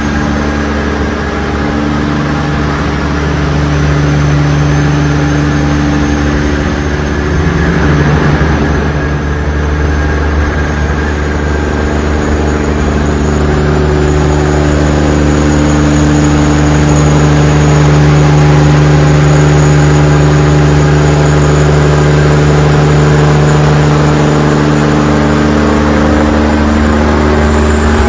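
Diesel semi-truck engine cruising at highway speed, a loud, steady low drone mixed with tyre and road noise.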